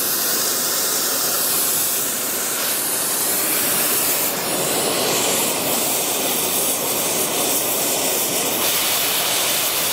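Oxy-acetylene torch with a large-orifice washing tip burning with a steady, even hiss, its gas pressures set high (about 8 psi acetylene, 50 psi oxygen) so the flame stays on the tip instead of popping out.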